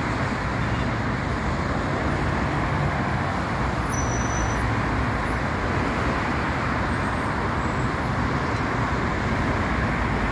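Steady road traffic noise from cars and buses on a busy multi-lane city road, an even wash of engine and tyre sound with no single vehicle standing out. A brief, faint high-pitched tone comes about four seconds in.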